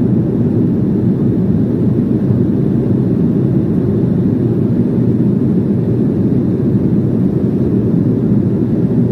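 Steady low cabin roar of an Embraer E190 twin-turbofan airliner in flight, engine and airflow noise heard from a window seat inside the cabin.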